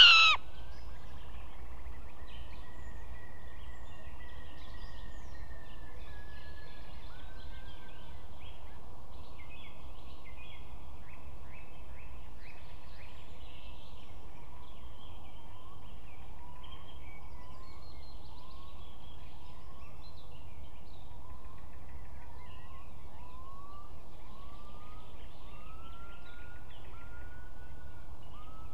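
Bird calls: a series of short upslurred whistled notes, about one a second, growing stronger toward the end, which the uploader takes for a northern lapwing's alarm call. A brief loud call comes at the very start, and faint songbirds sing throughout.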